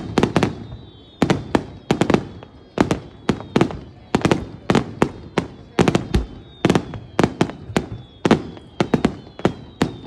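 Aerial fireworks shells bursting in a rapid barrage: sharp bangs about two a second, often doubled or in small clusters, each with a short echoing tail.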